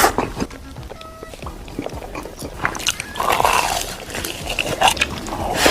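Person eating: irregular biting and chewing sounds, denser in the second half.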